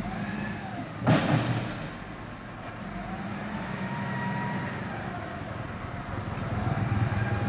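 Wheel loader dumping a bucketload of earth into a steel dump-truck bed: a loud crash of soil and stones landing about a second in. Under it the machines' engines run steadily, revving up and easing off, and swell near the end as the loader pulls away.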